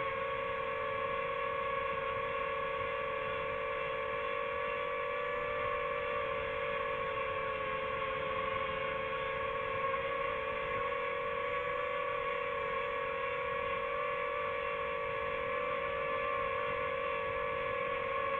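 Drone's motors and propellers whining steadily while it hovers, several steady pitches that drift slightly.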